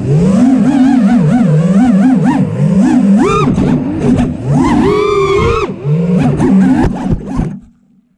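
FPV racing quadcopter's brushless motors and prototype lightweight HQ props whining, the pitch swinging rapidly up and down with the throttle. The whine cuts out near the end when the quad comes down in a bush and disarms.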